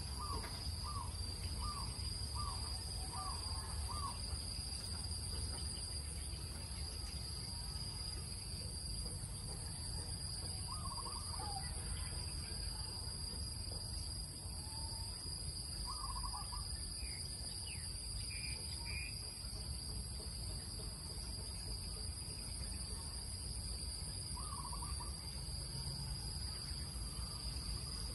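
Steady high-pitched drone of insects, with birds calling over it: a quick run of five or six short calls in the first few seconds, then single calls and a few higher chirps now and then. A low steady rumble lies underneath.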